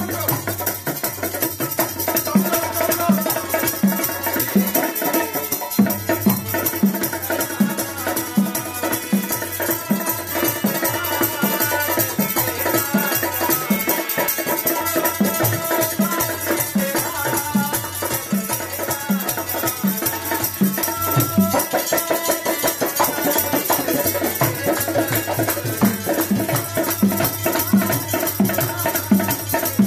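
Baithak gana music played live on harmonium and bongos: sustained harmonium chords and melody over a steady bongo beat of about two strokes a second.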